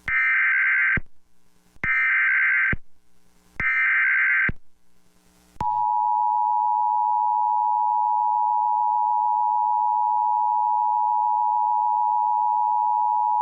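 Emergency Alert System broadcast tones for a National Weather Service severe thunderstorm warning: three short, buzzy bursts of SAME header data, each about a second long, then the steady two-tone attention signal, held for about eight seconds.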